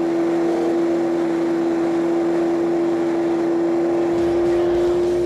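Kawasaki Z1000 inline-four motorcycle engine running at a steady cruising speed, with wind and road noise. The engine holds one unchanging tone, and a deeper rumble joins about four seconds in.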